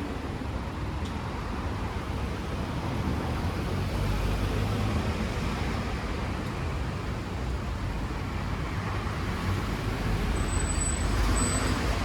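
Steady street-traffic noise with a low rumble, swelling a little about four seconds in and again near the end.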